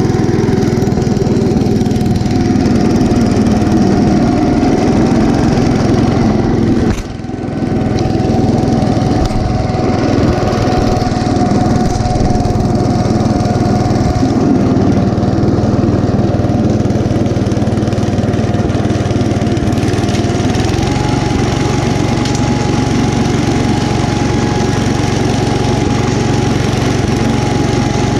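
1972 Gravely Commercial 10A walk-behind tractor with a snow thrower attachment, its 10 hp Kohler K241 single-cylinder engine running steadily under load while throwing snow. A steady high whine sits over the engine, the sound dips briefly about seven seconds in, and the whine steps slightly higher near the end.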